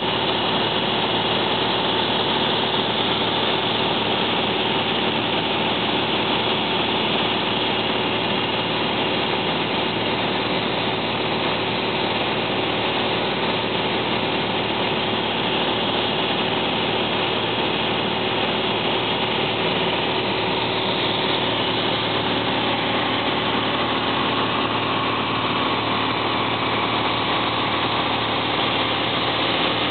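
A light aircraft's engine droning steadily in flight, heard inside the cabin, its pitch and level unchanging throughout.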